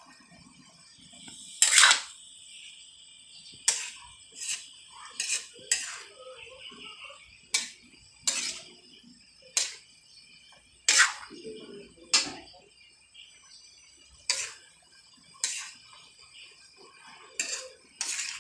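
Metal utensils clinking against cookware or dishes: about fourteen sharp, irregular clinks, roughly one a second, each with a short bright ring. The loudest, about two seconds in, leaves a ringing tone that hangs for a few seconds.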